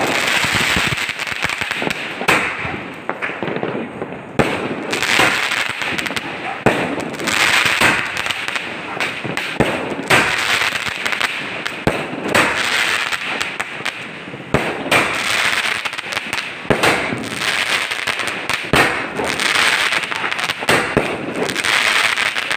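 Aerial fireworks going off in quick succession: repeated sharp bangs of shells bursting overhead, with spells of crackling between them.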